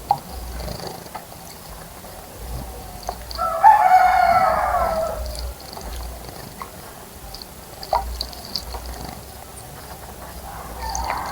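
A rooster crows once, a single call of about two seconds with its pitch sagging at the end, a few seconds in. Faint, scattered high chirps of small birds and a couple of short ticks sound around it.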